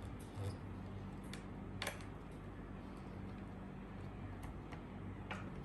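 Scattered light clicks and taps of small plastic kit parts and a cable connector being handled and plugged in, over a steady low electrical hum.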